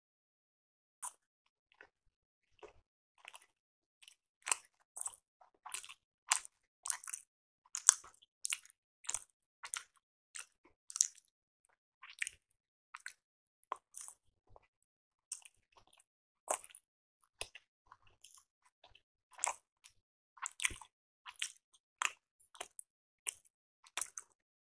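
A person chewing soft rice appe (paniyaram): a steady run of short chewing sounds, about one or two a second, with silent gaps between them.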